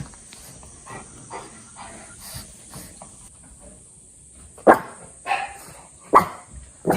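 A dog barking: four short, sharp barks in quick succession over the last couple of seconds, after a stretch of faint soft ticking.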